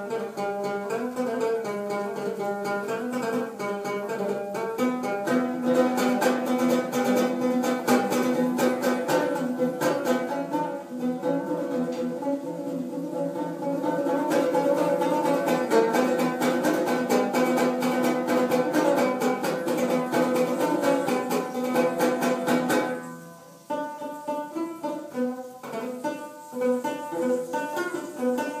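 Lively instrumental music on plucked string instruments: a quick melody over chords. It briefly drops out about 23 seconds in, then carries on.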